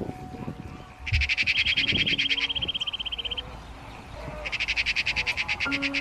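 A high, rapid pulsing trill of about ten pulses a second, twice: from about a second in for two seconds, and again from about four and a half seconds in. Faint steady low tones sound beneath it.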